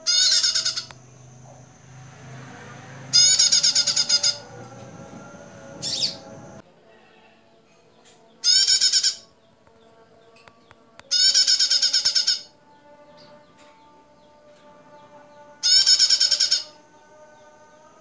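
Female prenjak (prinia) calling in six bursts of rapid, chattering high notes, each burst about a second long, with pauses of a few seconds between them.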